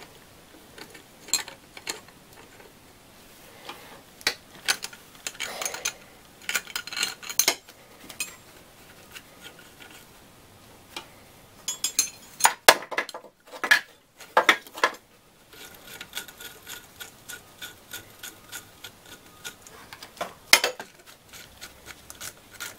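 Metal hand tools clinking and scraping on a threaded pulley installer tool on a power steering pump shaft. Irregular sharp clicks are followed, in the last several seconds, by an even run of wrench ticks at about three a second.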